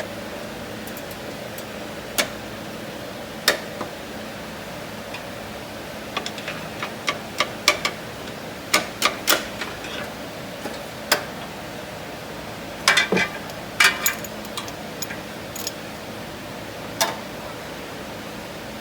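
Hand tools working on a motor mount bolt: scattered sharp metallic clicks and taps, some in quick runs, over a steady low hum.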